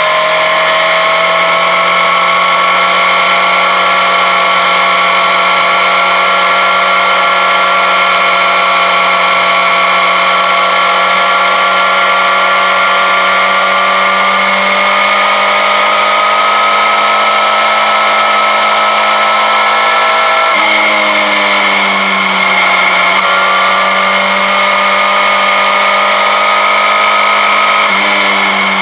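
Motorcycle engine running under way at a steady cruise, a loud whine whose pitch creeps slowly upward, then drops and changes abruptly twice about three-quarters of the way through.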